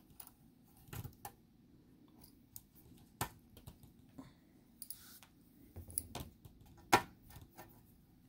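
Scattered sharp clicks and light taps, the loudest near the end, as the top screws of a laptop LCD panel are worked out with a small jeweler's Phillips screwdriver.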